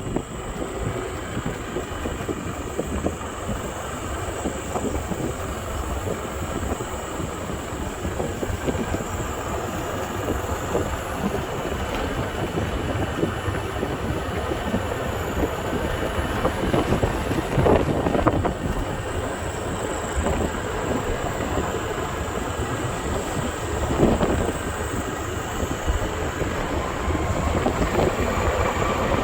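Steady vehicle rumble with wind on the microphone, and a few louder bumps partway through.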